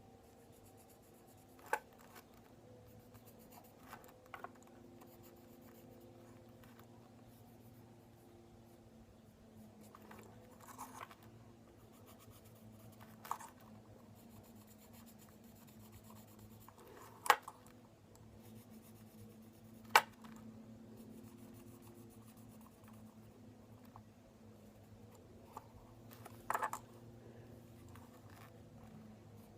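Quiet marker-pen drawing on a fidget spinner: faint scratching, with a few scattered sharp clicks and taps from handling it, over a low steady hum.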